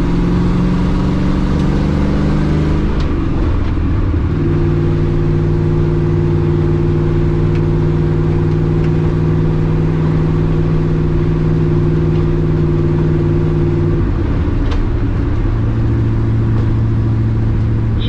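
LS-swapped V8 engine heard from inside the car, running steadily on the road. The engine note changes about three to four seconds in and again about fourteen seconds in, with gear changes through the new short shifter.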